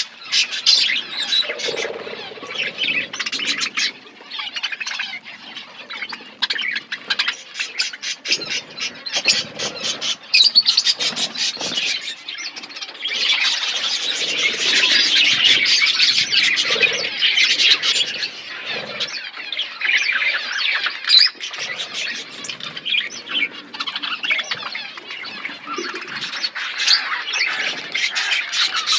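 A flock of budgerigars chattering and squawking without pause, many birds calling over one another in quick, overlapping chirps that grow busiest midway.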